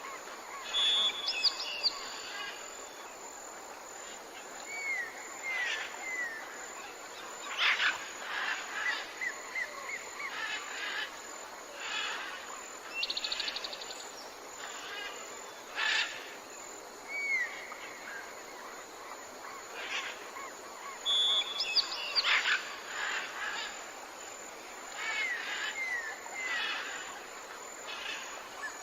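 Tropical rainforest ambience: many birds calling over a steady hiss of background noise, with runs of three short rising whistled notes and scattered sharper calls. The same sequence of calls comes round again after about twenty seconds.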